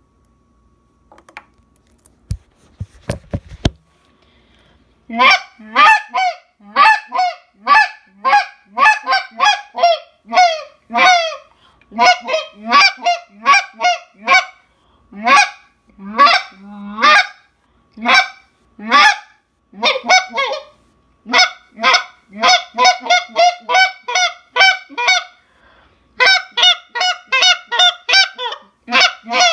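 A Tim Grounds Overhauler goose call being blown in a long series of short goose honks. The honks begin about five seconds in after a few faint clicks, and later quicken into fast runs of notes.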